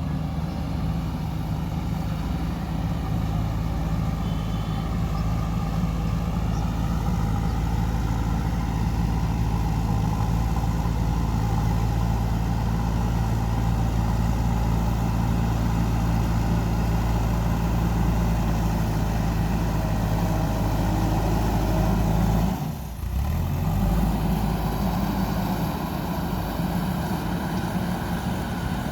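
JCB 3DX backhoe loader's diesel engine running steadily as the machine works, with a brief break in the sound about three-quarters of the way through.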